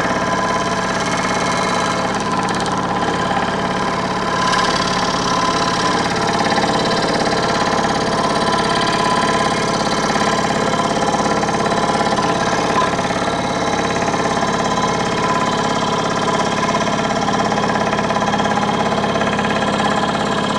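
Scroll saw running steadily, its blade cutting a cope into the end of a narrow wooden trim molding strip in light nibbles along a curved contour. A steady buzzing hum, a tiny bit loud.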